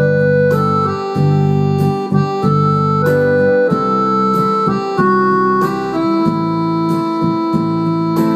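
Electronic arranger keyboard played live: a slow melody of held notes over sustained chords and bass notes.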